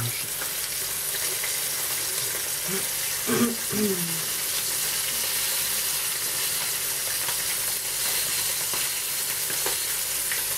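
Small flour-dusted tugun (a Siberian whitefish) sizzling in hot oil in a frying pan, a steady hiss of frying.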